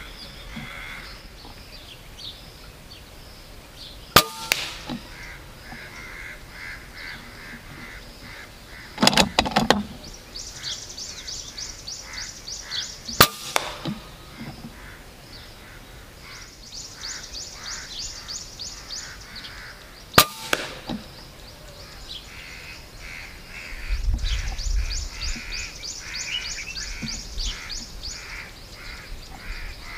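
Regulated .25 Avenger PCP air rifle firing three shots of 34-grain slugs, each sharp crack followed under half a second later by a smaller smack, with a short clatter of clicks between the first two shots. Crows caw throughout, over a fast, high, rhythmic chirping.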